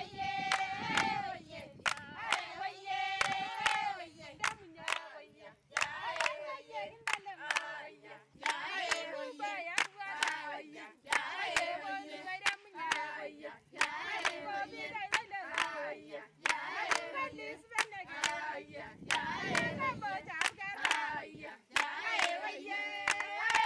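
A group of women singing a song together, with handclaps keeping a steady beat.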